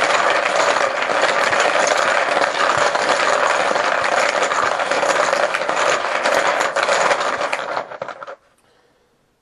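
Poker chips being shaken and mixed together, a dense, continuous clatter of small hard clicks that stops abruptly about eight seconds in.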